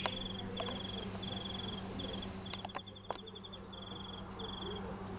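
Cricket chirping: a string of short, rapidly pulsed trills, a little under two a second, over a steady low hum.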